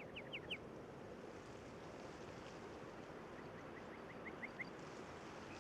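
A bird calling a quick series of short rising notes that climb in pitch and grow louder, heard twice: once ending just after the start and again about three and a half seconds in. Under it runs a steady faint hiss of outdoor ambience.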